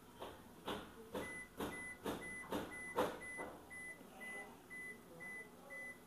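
Toshiba AW-A800SV washing machine control panel: plastic buttons clicking about twice a second for the first three seconds as they are pressed to clear an error code, while the machine gives a short high beep about twice a second.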